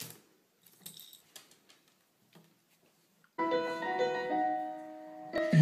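Faint scattered taps and clicks, then, about three and a half seconds in, a few held piano-like keyboard notes start suddenly and fade away. A louder sudden sound breaks in at the very end.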